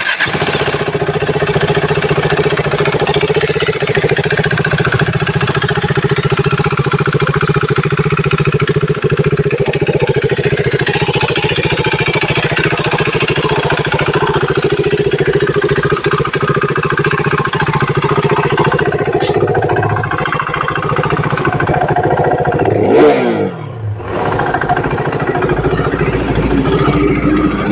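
KTM RC 390's single-cylinder engine running through its stock exhaust, idling steadily. Near the end it is revved once briefly and falls back to idle.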